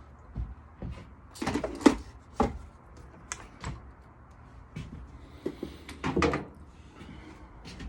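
Scattered knocks, clicks and light rattles of hard objects being handled and set down, with a busy cluster near two seconds in and another about six seconds in.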